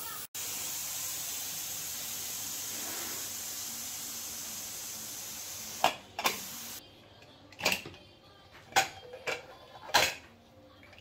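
Steam hissing steadily out of an aluminium pressure cooker's vent as its whistle weight is lifted with a ladle to release the pressure; the hiss stops abruptly about seven seconds in. Then several sharp metallic clicks and clanks as the cooker's lid is worked open.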